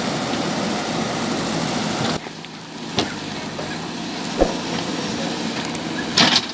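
JCB 3DX backhoe loader's diesel engine running, its sound changing abruptly about two seconds in, with a few sharp knocks after that.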